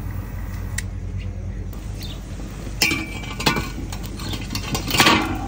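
A wire grill grate and metal tongs clinking against a charcoal kettle grill: a few sharp metal strikes about three seconds in and again near the end, some with a short ring, over a steady low hum.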